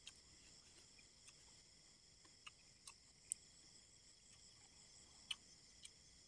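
Faint steady chorus of crickets and other night insects chirring, with a few short sharp clicks, the strongest about three seconds in and again about five seconds in.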